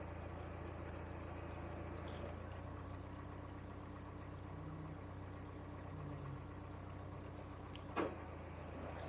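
Narrowboat diesel engine running steadily at low revs, a constant low hum. A single sharp knock about eight seconds in.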